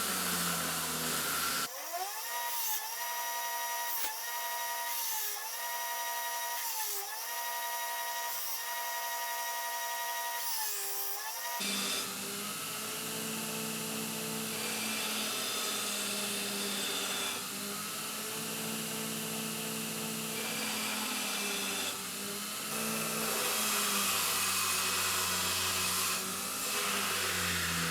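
Belt grinder with a coarse 36 grit belt profiling forged knife blades. The motor's pitch dips and recovers about once a second as each blade is pressed into the belt and lifted off.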